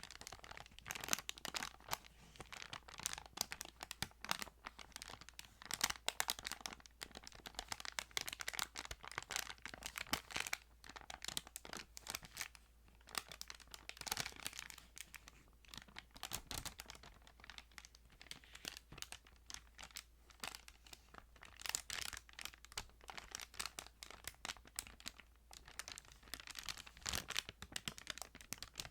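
Thin Bible pages being handled and turned, a continuous run of soft crinkling rustles and small clicks.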